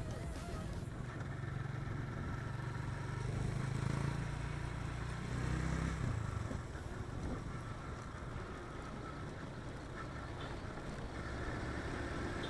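Motorcycle riding along a road: the engine runs under a steady rush of wind and road noise. The engine note swells a few seconds in, eases off in the middle, and picks up again near the end.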